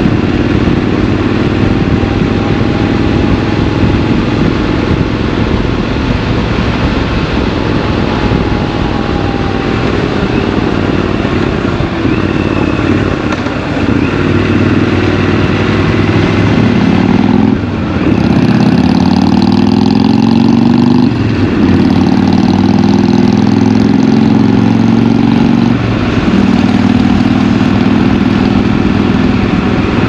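Triumph Scrambler 1200 XC parallel-twin engine running under way, heard over wind and road noise. Through the second half the engine note rises and falls as the throttle is worked, with two brief drops in the sound.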